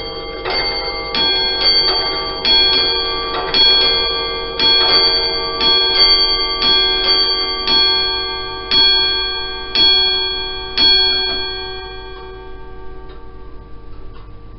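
Comtoise clocks striking on their bells: a run of ringing strikes, some close together and ringing into one another, the last few about a second apart. The striking stops near the end, leaving faint pendulum ticking.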